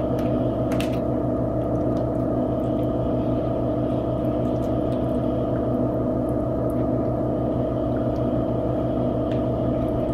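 A steady hum made of several constant tones, like a motor or appliance running, with a few faint clicks and taps.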